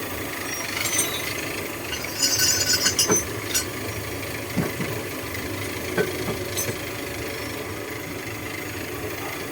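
Toyota Corolla 2E four-cylinder engine idling steadily. A run of sharp metallic clatter comes about two to three seconds in, and single knocks follow a little later.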